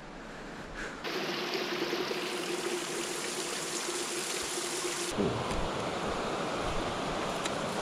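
Water trickling and splashing down a wet rock face, a steady rush that starts suddenly about a second in. About five seconds in it cuts to a different, duller steady rushing background.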